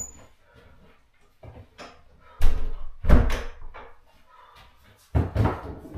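A bothy hut's door being opened and shut: a few knocks and bangs, the loudest a little after two seconds in and again after five seconds.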